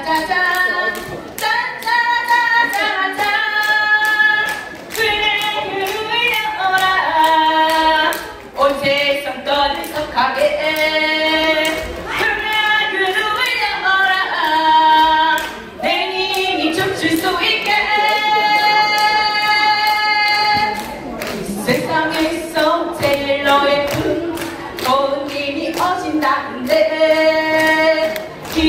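A singer's voice amplified through a handheld microphone and stage PA, carrying a song with long held notes, over a steady beat of claps.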